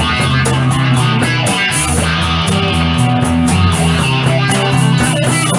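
Instrumental break in a rock song: guitars and bass guitar playing over a steady drum beat, with no singing.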